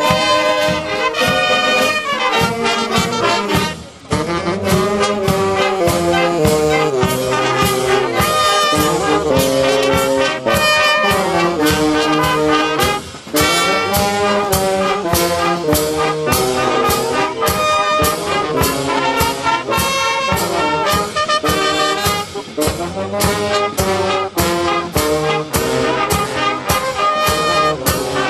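Brass band playing a march, with trumpets and trombones over a steady beat and two short breaks between phrases.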